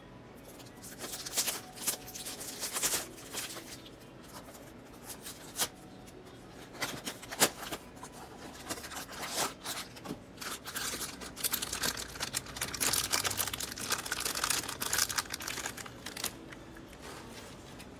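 Packaging of a Funko mystery mini blind box being torn open by hand: plastic shrink-wrap and cardboard flaps, then the crinkly black foil bag inside. Irregular tearing and crackling with a few sharp snaps, turning into a longer stretch of continuous crinkling in the second half.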